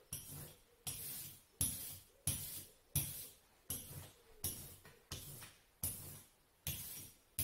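Hand brayer rolling tacky oil-based printing ink over a lino plate, about ten strokes back and forth, each a sticky crackling hiss that starts sharply and fades.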